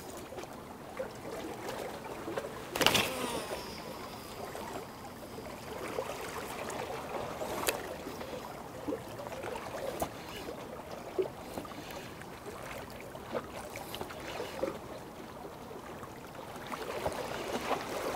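Small waves lapping at the water's edge, with scattered light knocks and splashes and one louder sharp splash-like noise about three seconds in.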